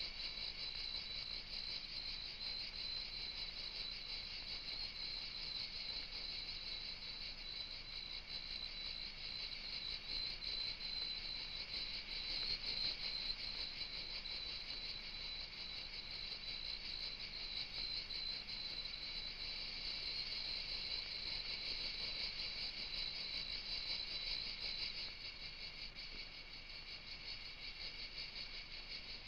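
Steady chorus of insects chirring: a dense, high-pitched trill that goes on without a break.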